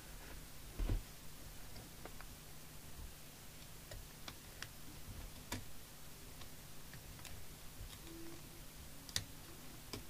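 Scattered light clicks and small knocks of a CB radio chassis and its parts being handled on a workbench, coming at irregular moments with a louder knock about a second in, over a steady low hum.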